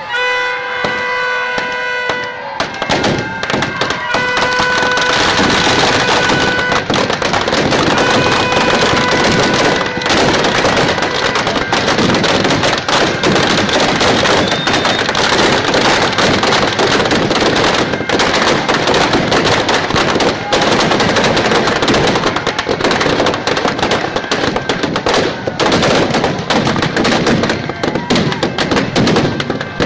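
Firecrackers packed inside a burning Ravana effigy going off in a rapid, unbroken barrage of cracks and bangs, beginning about two seconds in after a few horn-like held tones.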